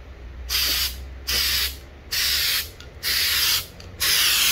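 Aerosol can of Steel-It weldable stainless primer spraying in five short hissing bursts, each about half a second long, with short pauses between.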